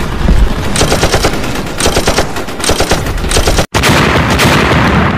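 Several short bursts of rapid automatic gunfire. After a sudden break, a heavy gun blast from a warship's big gun, with a long rolling rumble that slowly fades.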